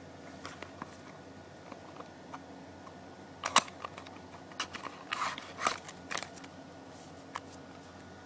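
Scattered clicks and rustles of a small cardboard box and its plastic packaging being handled and opened, with the sharpest click about three and a half seconds in and a cluster of them around five to six seconds, over a steady low hum.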